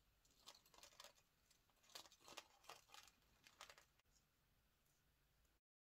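Faint clicks and rustles of metal crimping pliers and small terminal tackle being handled while a crimp sleeve is pressed onto titanium leader wire, a scattering of short ticks over the first four seconds. The sound then stops abruptly near the end.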